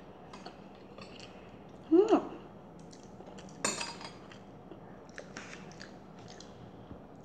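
Close chewing and biting of a fried samosa, with small crackling crunches scattered throughout. About two seconds in comes a brief hummed vocal sound, the loudest moment, and a sharper crunch or breath follows a second and a half later.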